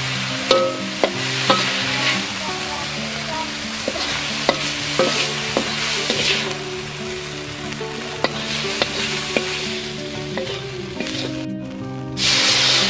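Water spinach sizzling as it is stir-fried in a hot aluminium wok, with a metal spatula scraping and clicking against the pan. Near the end, water poured into the hot wok sets off a sudden loud hiss.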